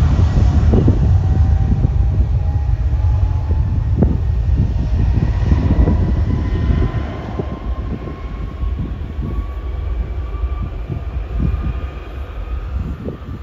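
Twin rear-mounted Rolls-Royce BR715 turbofans of a Boeing 717 rolling away down the runway: a heavy low rumble under a thin engine whine that rises slowly in pitch. The rumble drops off about halfway through as the jet draws away.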